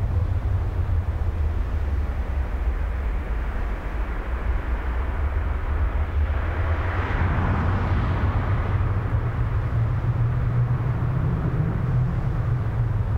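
Steady low rumble of ambient background noise, with a broad rushing sound that swells up about six seconds in and fades away over the next few seconds.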